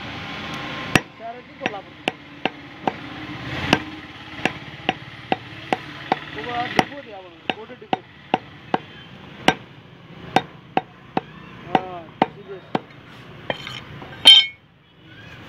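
Heavy butcher's cleaver chopping bone-in mutton on a wooden log chopping block: a steady run of sharp chops, about two a second. Faint voices in the background, and a loud metallic clank near the end.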